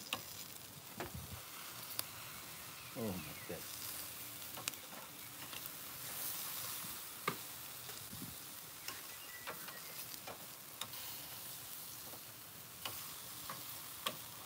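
Marinated meat sizzling on a barbecue grill, a steady hiss, with brief clicks of metal tongs now and then as the pieces are turned.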